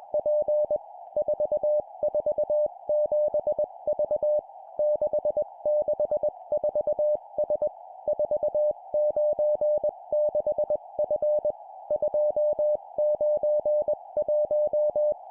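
Morse code (CW) practice tone sent at 20 words per minute: a steady mid-pitched beep keyed in dots and dashes, forming four-character groups of three digits and a letter, with short pauses between groups. A narrow band of hiss runs underneath without a break.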